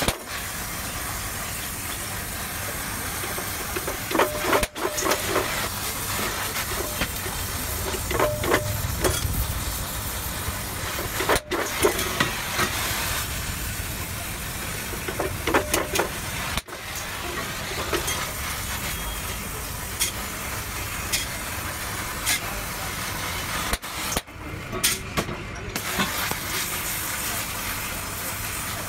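Gas welding torch hissing steadily as its flame heats and fuses joints of a mild-steel tube frame with filler rod, with occasional light clicks. The hiss breaks off briefly a few times.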